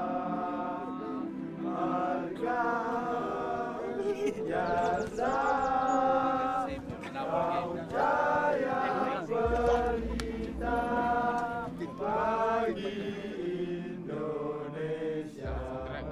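Background music with choir-like sung vocal phrases over a steady held chord.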